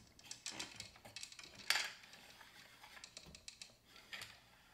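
Plastic gears of a Downspin game unit clicking as a key turns them: a run of irregular light clicks, with one louder click or clack a little under two seconds in.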